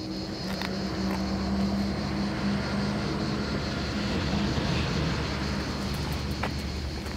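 Aircraft engine running steadily with a low hum and a few held tones, swelling over the first second or two and then holding level.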